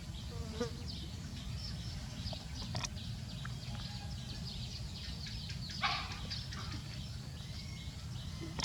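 Small birds chirping now and then, short high notes scattered over a steady low background rumble; a brief louder noise about six seconds in.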